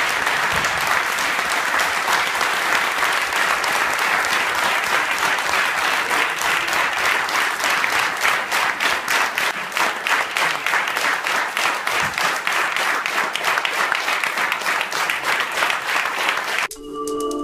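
A roomful of people applauding: dense clapping that, about halfway through, thins into more distinct individual claps. Near the end it cuts off and a short musical jingle begins.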